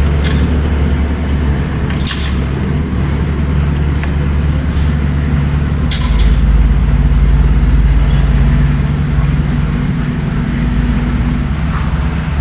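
Bulldozer's diesel engine running steadily under work, getting a little louder and heavier about six seconds in, with three sharp knocks along the way.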